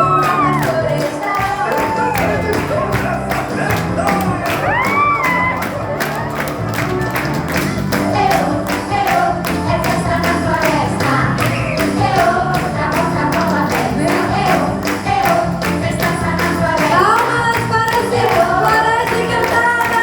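Music playing: a song with singing voices over a steady percussive beat.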